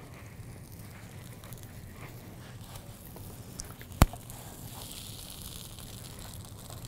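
Faint steady crackle of a folded flour-tortilla crunch wrap toasting in a non-stick skillet, with one sharp click about four seconds in.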